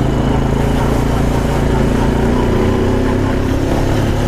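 ATV engine running steadily as the quad drives along a dirt track at an even speed, with rushing air noise over it.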